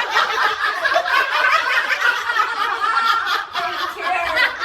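Several women laughing and snickering at once, their voices overlapping throughout, with a brief dip about three and a half seconds in.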